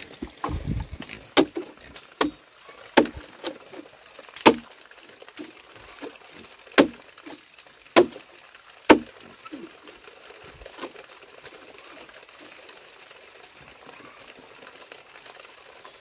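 A series of sharp blows, about eight of them roughly a second apart, which stop about nine seconds in: a hand tool striking wood during log-wall building.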